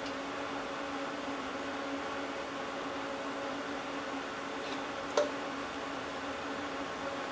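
Steady, even machine hum at a fixed pitch, with one short sharp click about five seconds in.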